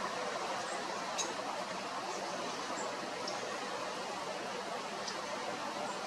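Steady outdoor background hiss, with a few faint, very short high-pitched chirps scattered through it.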